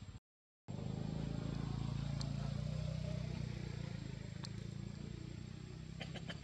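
Low, steady hum of a motor vehicle engine running, easing off over the last second or two, with a few faint sharp clicks. It starts after a brief moment of silence near the start.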